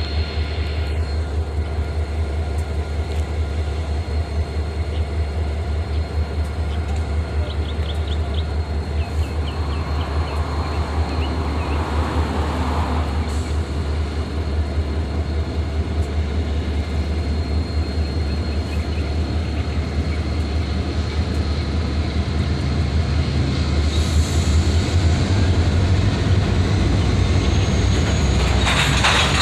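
Freight train of covered hopper cars rolling slowly through a rail yard: a steady low rumble with a few brief high wheel squeals, growing somewhat louder near the end.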